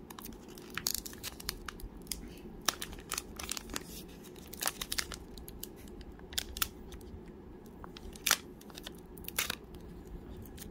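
Crinkling and irregular sharp crackles of a trading-card pack's wrapper being picked at and pulled by fingers while trying to tear it open, over a steady low hum.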